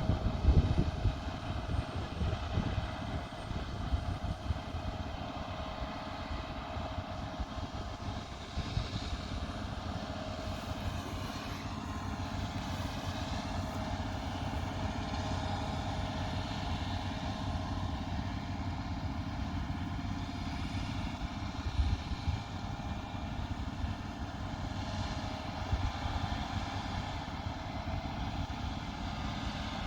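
Combine harvester running steadily under harvesting load: a constant mechanical drone with a steady whine over a low rumble.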